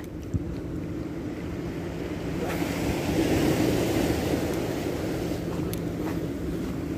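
Wind and sea waves washing against the seawall, a steady rushing that swells for a couple of seconds near the middle, over a steady low hum.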